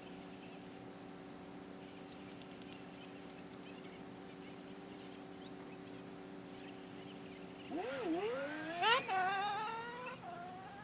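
An engine hum under a quick run of sharp clicks, then the engine revving: its pitch dips and then climbs steeply for about two seconds before easing off near the end.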